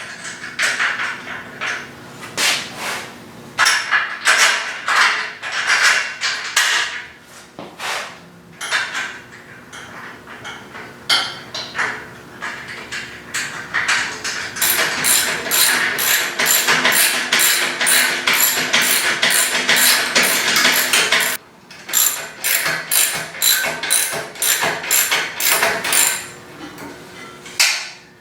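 Repeated hammer blows and metal tool clatter while kart chassis parts are fitted, with a long, fast run of evenly spaced strikes in the middle and a short break just after it.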